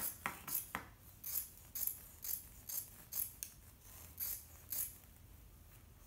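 Scissors cutting through fibrous roll-type furnace filter material: a crisp, rhythmic snipping crunch about twice a second, with a few sharper blade clicks in the first second.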